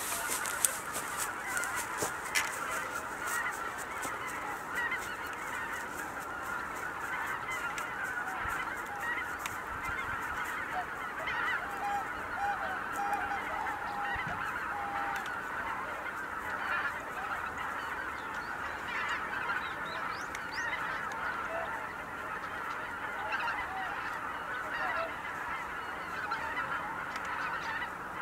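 A large flock of greater white-fronted geese calling, a dense, steady chorus of many overlapping honks. A few sharp ticks come in the first couple of seconds.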